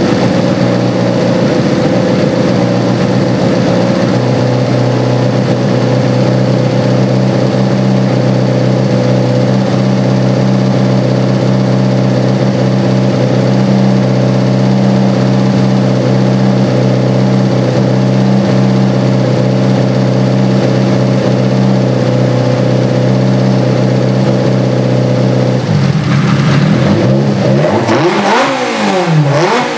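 Classic Mini race car's KAD twin-cam four-cylinder engine with twin sidedraft carburettors, running loudly through its intakes and exhaust, held at a steady speed. Near the end it is blipped repeatedly, revving up and falling back several times in quick succession.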